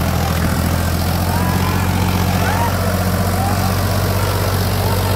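Powertrac Euro 50 tractor's diesel engine running steadily under load, hauling a loaded trailer through deep mud.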